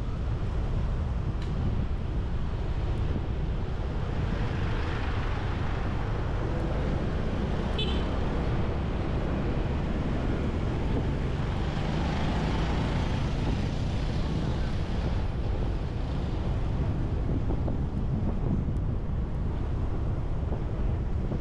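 Motorbike riding through street traffic: steady wind buffeting on the microphone over the running engine, with other vehicles passing. Two brief high beeps come about a second and a half in and again near eight seconds.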